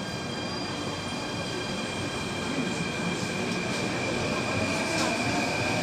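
Athens Metro second-generation train pulling out of a station, heard from inside the carriage: several steady high tones from the electric drive over the rumble of the wheels, growing louder as the train gathers speed.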